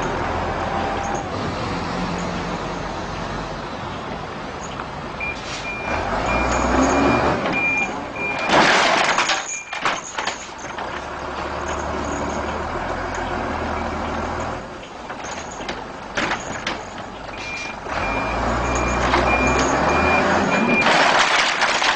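Loaded flatbed truck manoeuvring in reverse, its engine running and rising in two spells. Two runs of steady high reversing beeps sound, about five to eight seconds in and again from about seventeen to twenty-one seconds. Each run is followed by a short hissing burst of the air brakes.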